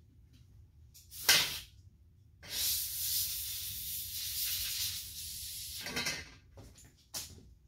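Compressed air from an air-hose blow gun, blowing dirt out of chainsaw parts: a short blast about a second in, a longer steady hiss of about three and a half seconds, and a brief blast near the end.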